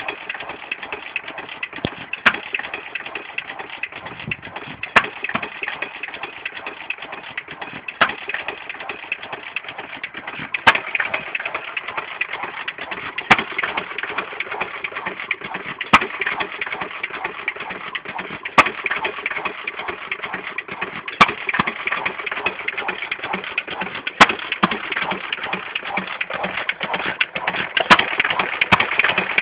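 Amanco Hired Man 2 1/4 hp open-crank hit-and-miss stationary engine running on its governor: a sharp bang about every two and a half to three seconds as it fires, with a steady mechanical clatter as it coasts in between. It is running on a home-made gasket that, in the owner's words, has it sounding right.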